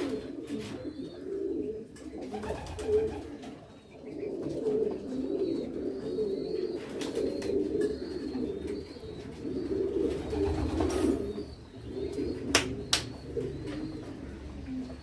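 Domestic pigeons cooing continuously, several birds overlapping. A couple of sharp knocks sound near the end.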